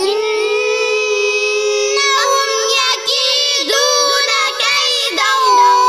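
A child's voice chanting Quranic recitation in a drawn-out melodic style, with long held vowels broken by short pauses.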